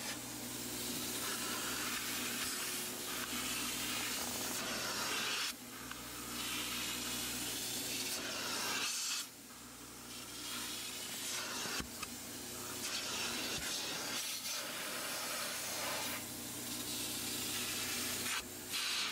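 Aqua Pro Vac carpet extractor running, its upholstery tool spraying and sucking cleaning solution out of a cloth car seat: a steady hiss of water and air over a constant motor hum. The hiss drops off briefly twice, as the tool lifts or the spray stops, then resumes.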